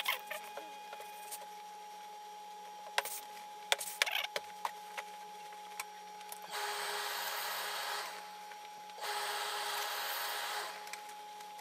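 Steam iron on a hose-fed steam supply, releasing steam in two even hisses of about a second and a half each, after a few light knocks and rustles of cloth being handled.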